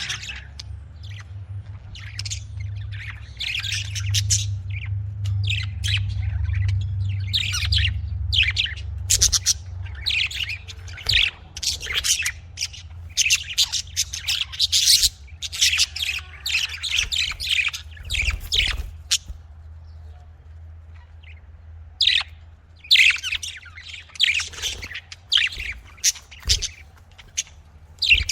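Pet budgerigars chirping and squawking, a busy run of short, high calls with a brief lull near the middle, over a steady low hum.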